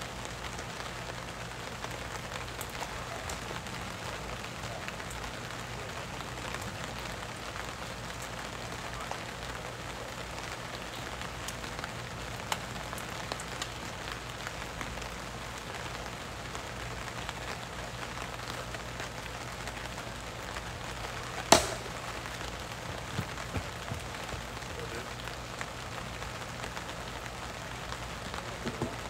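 Steady outdoor hiss with one sharp, loud crack about two-thirds of the way through: a plastic wiffle ball impact. A few fainter knocks come near the end.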